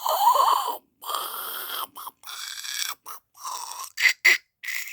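A person making weird mouth and breath noises: a string of about nine separate breathy, hissing bursts, the first with a wavering pitch, the last few short and sharp.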